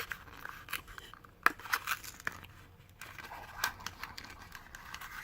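A Transformers BotBots blind pack's packaging being opened by hand: faint crinkling and tearing with scattered clicks and a few sharp snaps.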